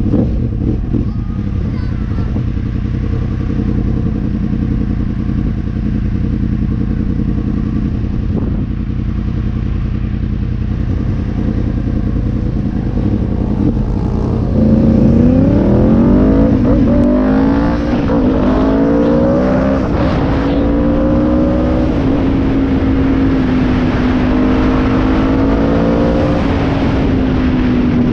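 Stage 1 Yamaha R1/MT-10 1000cc inline-four engine in a quad bike, idling steadily for about half the time. It then pulls away, rising in pitch through several quick gear changes, and settles to a steady cruise.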